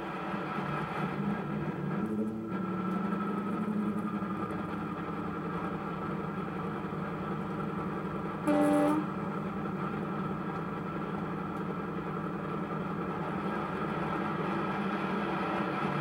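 Digital sound chip playing a Napier Deltic diesel engine idling through the small speaker of an OO gauge Bachmann DP1 model locomotive. The engine note steps up slightly about two and a half seconds in. About halfway through there is one short, louder horn blast.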